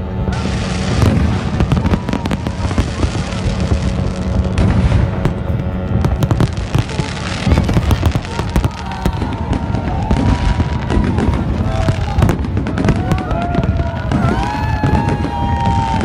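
Fireworks display: a dense, unbroken run of bangs and crackling bursts from aerial shells.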